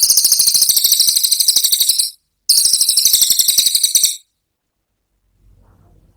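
Cililin song bird giving its 'tembakan' song: two long, very fast, high-pitched rattling trills, the first about two seconds and the second about a second and a half after a brief break, then it stops.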